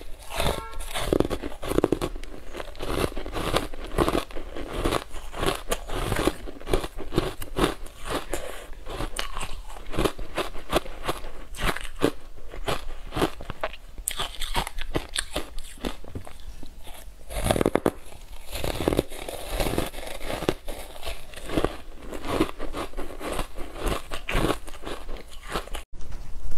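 Close crunching and chewing of frozen ice chunks coated in matcha powder, a dense run of crackling crunches as the ice is bitten and ground between the teeth.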